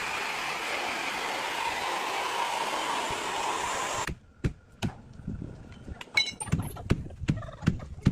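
A power tool running steadily at full speed, which cuts off abruptly about four seconds in and is followed by a series of sharp knocks and clicks from wood being handled.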